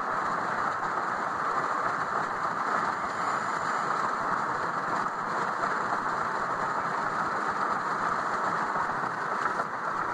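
Steady road and engine noise inside the cabin of a moving vehicle.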